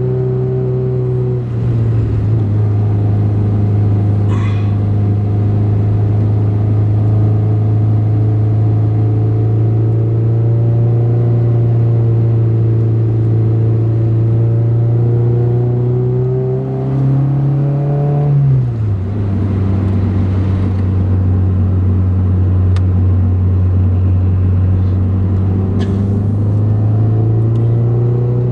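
2008 Honda Civic Si's 2.0-litre four-cylinder engine pulling uphill through a catless header and cat-back exhaust, a loud steady drone heard from inside the car. Its pitch climbs slowly and drops sharply twice, shortly after the start and about two-thirds of the way through, as the gears are shifted up.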